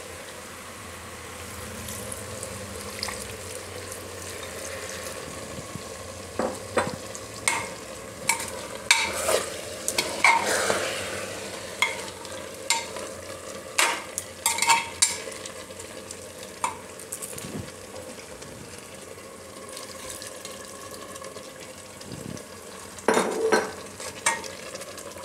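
Large steel spoon stirring jackfruit curry in an open pressure cooker, knocking and scraping against the pot in clusters of sharp clinks over a steady sizzle of the masala cooking. The clinks come thickest through the middle and again near the end.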